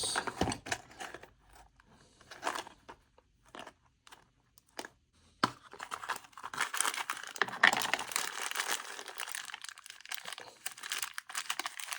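A few light clicks and taps, then about six seconds of plastic-bag crinkling as small packets of helical thread-repair inserts (coils) are handled.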